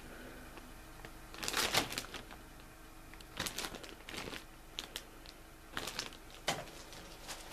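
Clear plastic bags of plastic model-kit sprues crinkling as they are handled and set back into the cardboard kit box, in short irregular rustles with light clicks, the biggest about one and a half seconds in.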